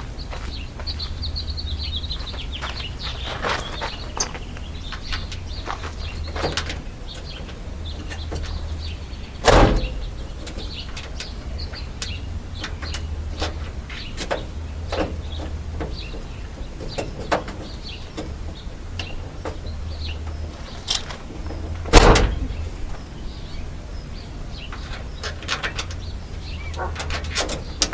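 Scattered clicks, scrapes and rattles of metal and plastic parts as a replacement door latch and handle are worked into a Dodge Sprinter's door, with two loud knocks about nine and a half seconds and twenty-two seconds in. A steady low hum runs underneath, and a bird chirps faintly near the start.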